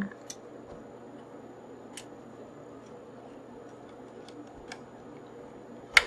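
A few faint scattered clicks of a screwdriver and small screws against the metal bracket of a DVD-ROM drive being screwed in, with a sharper click near the end, over a faint steady hum.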